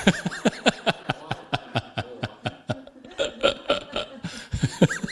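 Sustained hearty laughter: a long run of quick 'ha' pulses, about four or five a second.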